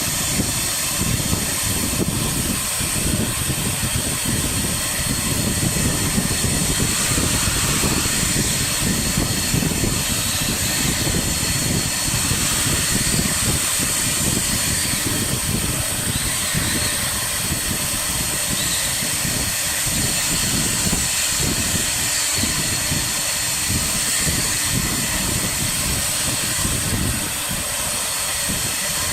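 Air-cooled spindle of a CNC wood router running at speed while carving MDF: a steady high whine over a rushing hiss, with the rougher noise of the cut underneath.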